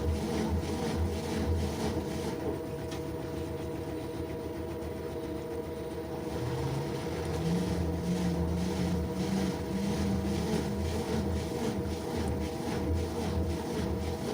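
LG washing machine running a wash cycle: a steady motor hum with an even low pulsing as the drum turns. A motor tone comes in about six seconds in and steps up in pitch.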